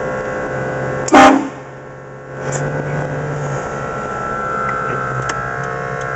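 One short, very loud blast of a vehicle-mounted train horn, about a second in, over the steady running drone of the vehicle.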